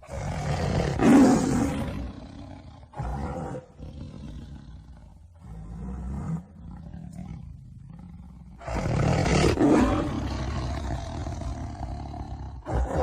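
Tiger roaring: a long, loud roar about a second in and another about nine seconds in, with shorter, quieter calls between them, and a further roar starting near the end.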